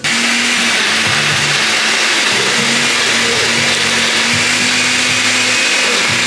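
Countertop blender switched on abruptly and running steadily at speed, mixing daiquiris.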